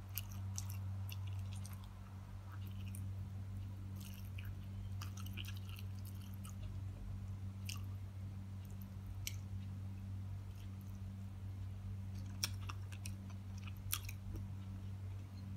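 Close-up chewing of a mouthful of fried tilapia and rice eaten by hand, with many small wet mouth clicks and two sharper clicks near the end, over a steady low hum.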